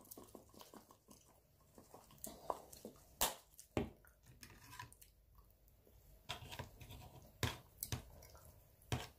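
Faint close-up eating sounds: chewing and a bite into crusty garlic bread. Scattered sharp clicks and taps run through it, the loudest a few seconds in as a plastic cheese shaker is handled and set down on the table.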